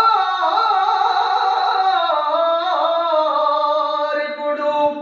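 A man's solo voice singing a Telugu verse (padyam) with no accompaniment, drawing out one long, wavering melismatic phrase without words that fades out near the end.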